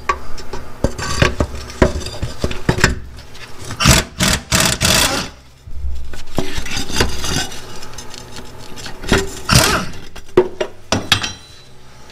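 Hand tools working the bolts of an exhaust pipe flange at the manifold: irregular metal clicks and clinks broken by several short rasping stretches, like a ratchet being worked.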